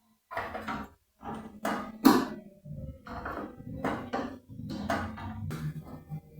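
Irregular metallic clinks and knocks of screws and a tool against the sheet-metal casing while a replacement magnetron is being screwed back into a microwave oven.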